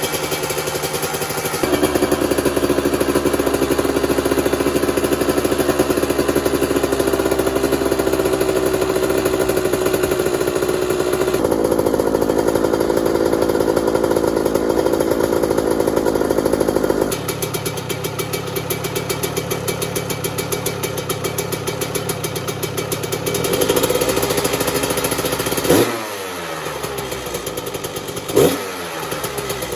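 Kawasaki KX125's two-stroke single-cylinder engine running while warming up after a cold start, holding a steady idle that shifts in pitch and level a couple of times. Near the end it takes two quick throttle blips, the revs falling away after each.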